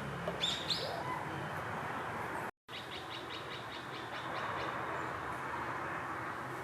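Brown-eared bulbul calls: two shrill rising notes about half a second in, then, after a brief cut, a quick run of short high notes. A steady low background hum runs underneath.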